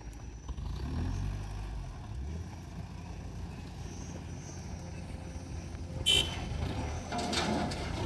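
Heavy diesel machinery running with a steady low rumble at an earthmoving site, swelling about a second in. A short, sharp high-pitched squeal about six seconds in, followed by some rattling near the end.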